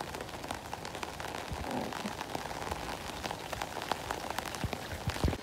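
Steady rain falling on a wet street, with many small sharp ticks of drops and a few low thumps near the end.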